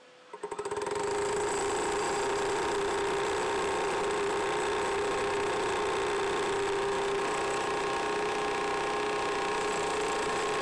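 Two Hilti demolition jackhammers, a battery-powered Nuron breaker and a corded one, start up together about half a second in and then run steadily side by side, their bits hammering rapidly into concrete slabs.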